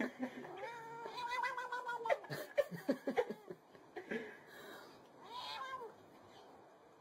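Domestic cat meowing: a long drawn-out meow about half a second in, a run of short clipped sounds after it, and a shorter meow near the end that rises and falls.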